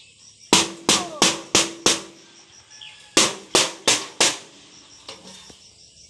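A stick beating a rusty corrugated metal sheet, used as a bird-scaring noisemaker to chase sparrows off ripening rice. It gives two quick runs of clanging strikes, five and then four, about three a second, each with a short metallic ring.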